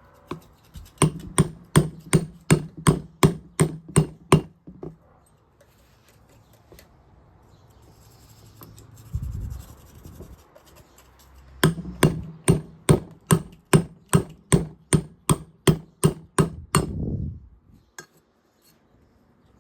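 Hammer tapping on a 17 mm socket to drive a new seal into a Honda AF16 two-stroke crankcase: a run of quick, even taps about three a second, a pause, then a longer run.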